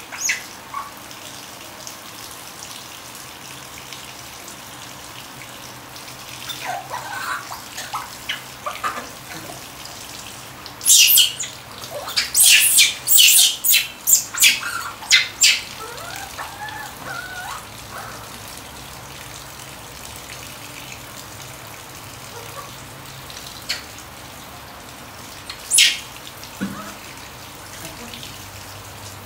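A baby macaque being washed under a running shower: the steady hiss of water spray, broken in the middle by a run of shrill squeals and a softer drawn-out call, and one more shrill squeal near the end.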